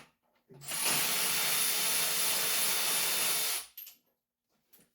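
Cordless power tool on a socket extension spinning a nut down onto an engine mount stud for about three seconds, then stopping abruptly; the nut has little thread engagement on the stud.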